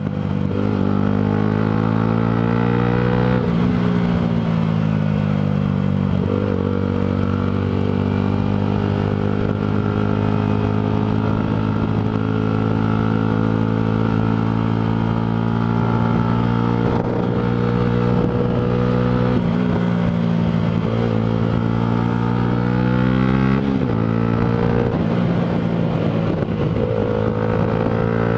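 Yamaha sport motorcycle engine under way, heard from the rider's position: the pitch climbs as the bike accelerates and drops suddenly at gear changes, twice in the first several seconds and again near the end, holding steady while cruising in between.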